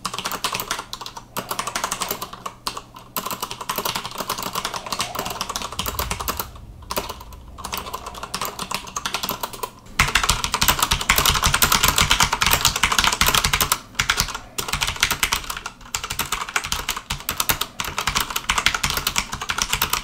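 Fast typing on a Corsair Strafe mechanical keyboard with Cherry MX Red linear switches: a rapid, continuous patter of keystrokes, not as loud as blue switches would be. About ten seconds in the sound becomes much louder and closer, as the microphone moves from ear height to right beside the keyboard.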